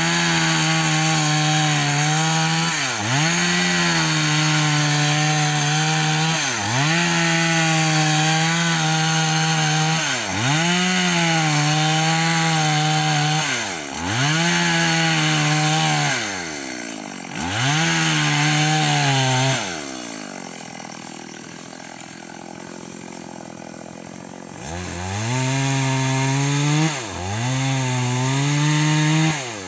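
Two-stroke chainsaw cutting into a rubber tree trunk at high revs, the engine note dipping and climbing back every few seconds as the throttle is eased and squeezed again. About two-thirds of the way through it drops to idle for several seconds, then revs up and cuts again before falling back near the end.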